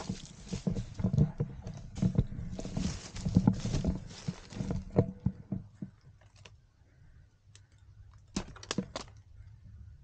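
Footsteps and movement through dry leaf and bamboo litter, with crunching, rustling and knocks of gear, for about the first five seconds. After that the sound drops to a few scattered clicks and taps.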